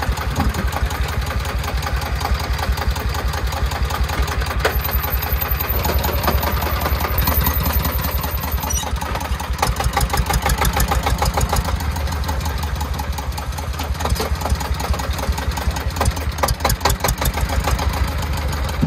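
Diesel engine of a công nông three-wheeled farm truck running with a fast, even chugging beat.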